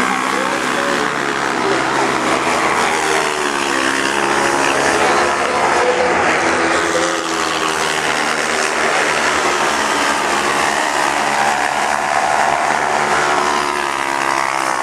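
Engines of single-seat racing buggies on a dirt track, rising and falling in pitch as they rev up and ease off through the corners. More than one car is running.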